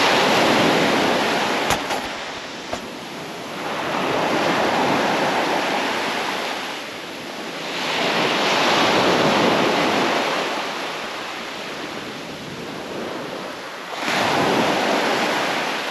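Surf breaking on the beach: a rush of waves that swells and fades four times, roughly every four to five seconds. A sharp click comes about two seconds in.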